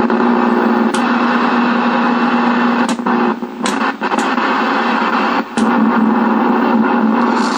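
Packard Bell MQ625 tube television's speaker giving out loud, steady static hiss with a low buzz under it, broken by several sharp clicks; the audio stage is working again with no station tuned in.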